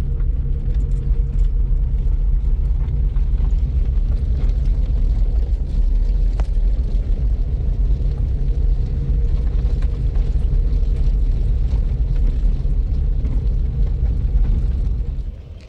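Steady low rumble of a vehicle in motion, engine and road noise with no clear changes, cutting off abruptly near the end.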